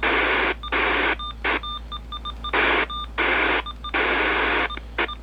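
Uniden BC370CRS scanner radio's speaker giving irregular bursts of static, each up to about a second long, with short beeps in the gaps between them.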